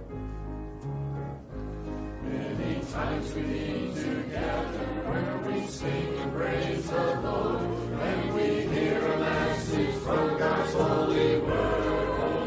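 Church choir singing with keyboard accompaniment. The choir comes in about two seconds in over held keyboard chords and grows gradually louder.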